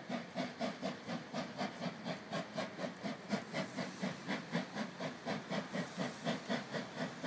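NSW C35 class steam locomotive 3526 approaching under steam, its exhaust chuffing in a steady, even rhythm of about four beats a second.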